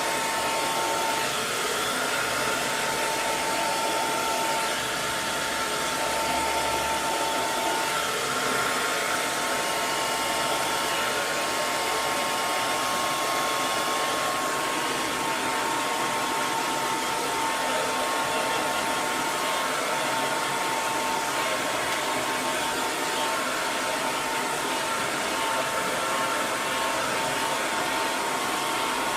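Electric hair dryer running steadily, a constant rush of blown air with a faint motor whine.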